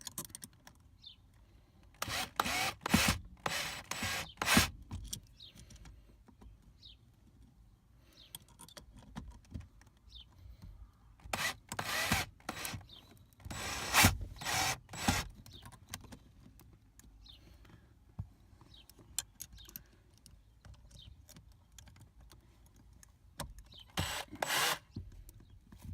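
A power drill run in short bursts, driving a bolt into a nylon locking nut to fasten a sport pedal pad onto the metal brake pedal. The bursts come in three spells with quiet stretches between.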